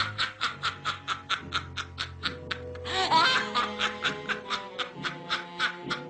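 Witch's cackle sound effect: a rapid, staccato 'ha-ha-ha' of about five laughs a second, breaking into a higher shriek about three seconds in, over a low steady drone.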